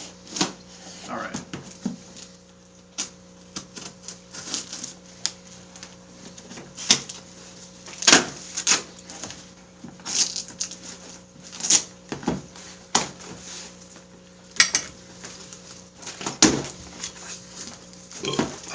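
Packaging being handled and unwrapped: irregular crinkles, rustles and sharp taps of cardboard and plastic wrap, with a faint steady electrical hum underneath.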